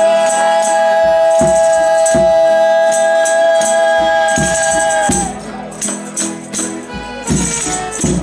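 Folia de Reis music: a long high note is held for about five seconds over pandeiro jingles and drum strokes, then breaks off and the instruments and percussion play on between sung verses.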